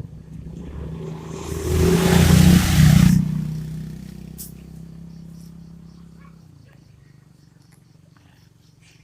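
A vehicle passing: an engine hum with a rush of noise that swells about two seconds in, then fades away over the next few seconds.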